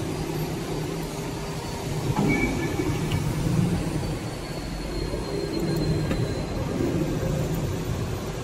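Steady low drone of running factory machinery, swelling and easing slightly, with no punching strokes.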